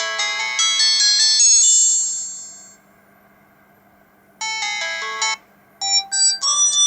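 Samsung SGH-C270 mobile phone ringtones: a melody of quick electronic notes that stops about two seconds in and fades out. After a short pause, another ringtone tune starts about four and a half seconds in.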